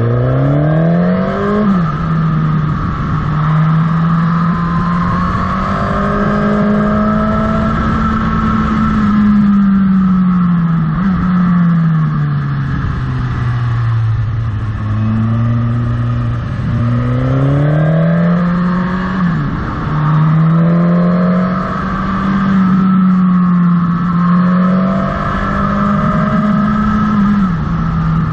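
Motorcycle engine running on the move, its pitch climbing and falling again and again with the throttle, with a few sudden steps in pitch where it changes gear.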